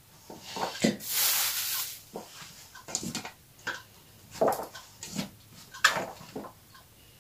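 Diced potatoes and fried minced meat being mixed by hand in a stainless-steel bowl: soft squelches and light knocks against the metal. Short breathy sounds from a person come in between, with a rushing noise lasting about a second, about a second in.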